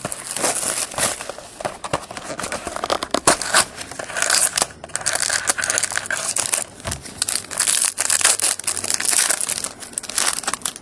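Plastic wrapping on a sealed box of trading cards being torn open and crumpled: a dense, continuous crinkling with sharp crackles that stops abruptly at the end.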